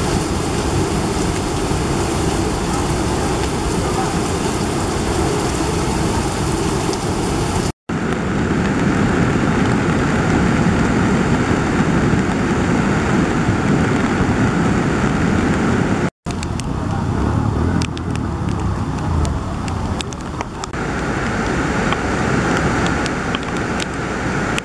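Heavy, steady rushing roar of a muddy river in flood, its fast turbulent water surging past. The sound cuts out abruptly twice.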